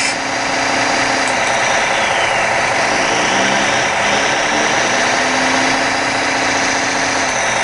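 The diesel-engine sound of a 1:16 radio-controlled hydraulic excavator's electronic sound module running steadily while the excavator digs with its clam bucket, with a high whine that twice dips and rises in pitch.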